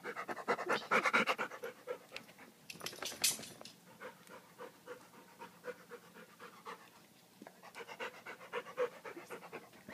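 A dog panting rapidly and hard, loudest in the first second and a half and again near the end, with a brief sharp hissing noise about three seconds in.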